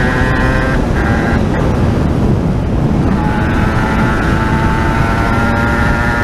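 Aprilia RS 125 two-stroke single-cylinder engine running at high revs under way, over heavy wind noise on the camera. The engine note breaks twice within the first second and a half, sinks under the wind for a moment, then comes back on steady about three seconds in.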